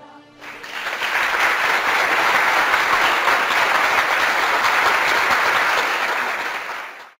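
Crowd applause that swells up over the first second, holds steady, then cuts off abruptly near the end.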